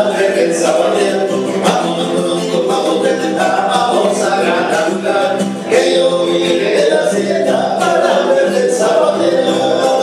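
Male vocal trio singing a Yucatecan jarana in harmony, accompanying themselves on strummed acoustic guitars.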